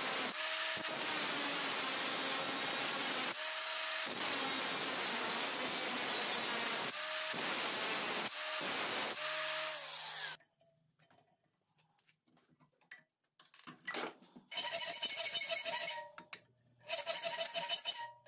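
Cordless angle grinder with an abrasive cut-off disc sawing slots into a steel angle clamped in a vise. It cuts loudly for about ten seconds with a few brief let-ups, then stops. Near the end a steady pitched tone sounds twice.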